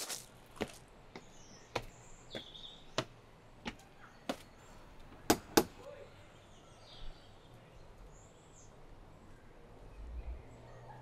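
Footsteps at a steady walking pace, then two sharp knocks on a front door about halfway through. Birds chirp faintly in the background.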